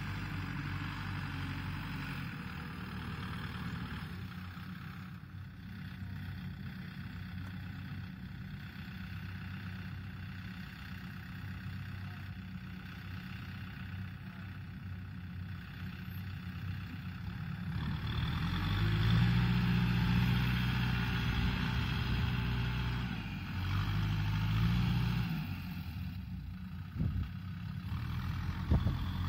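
Kubota tractor's diesel engine idling steadily, then revving up with rising pitch about two-thirds of the way through as it pulls away with a loaded trailer, the engine speed rising and falling after that. A couple of short sharp clanks near the end.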